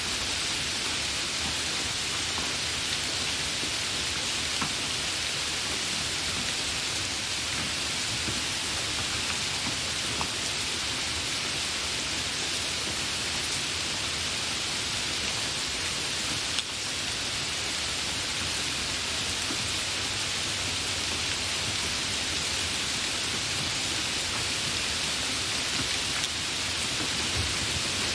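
Hard rain falling steadily: an even, unbroken hiss with the odd louder single drop.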